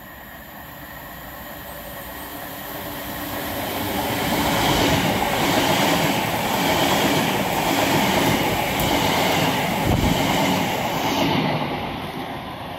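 A passenger train approaching and rushing past at speed on the track alongside, its wheels on the rails building to a loud rush with a rhythmic clatter as the cars go by, then fading as it runs away.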